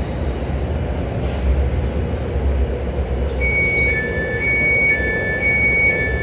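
Glasgow Subway train (new Stadler stock) rumbling on the track. About halfway in, a repeating two-tone high-low electronic beeping starts and keeps cycling.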